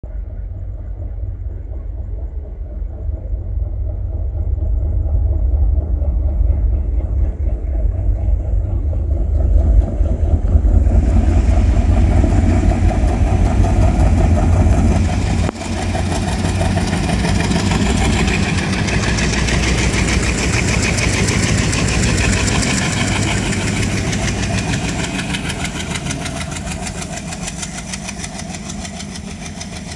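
Twin WDG3A diesel locomotives' turbocharged ALCO engines chugging under heavy throttle as the train accelerates away from a stop, a deep rumble that grows louder as they come closer. About halfway through, fuller rolling noise from the train passing close takes over and slowly fades near the end.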